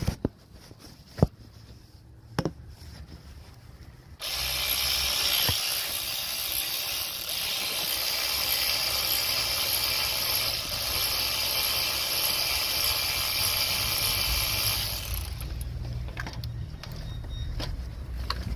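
A power tool, a drill or power ratchet type, runs steadily for about eleven seconds, starting suddenly about four seconds in and winding down near the end, as bolts are run out of the AC compressor bracket. A few sharp metal clicks come before it.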